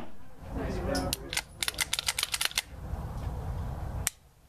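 Faint voices, then a quick run of sharp clicks and cracks about a second and a half in, and one more crack near the end before the sound cuts off abruptly.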